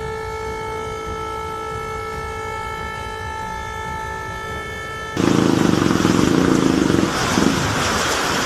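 A vehicle horn held in one long steady note. About five seconds in it cuts off abruptly and loud rushing water takes over.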